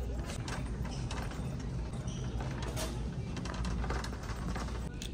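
Shopping cart rolling over a store floor with a low rumble and small scattered rattles and clicks, against general store background noise.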